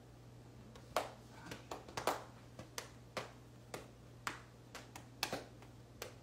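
A string of sharp, irregular clicks and taps, about fifteen in five seconds, starting about a second in, over a steady low electrical hum.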